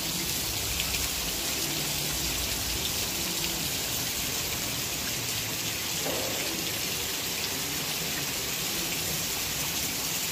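Steady rain falling on a concrete courtyard, an even hiss without let-up.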